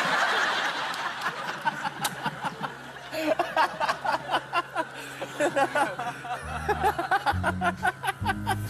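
The last of a loud truck-horn blast fades away at the start, followed by people laughing and calling out in short, excited bursts. Music with a low bass line comes in about two-thirds of the way through.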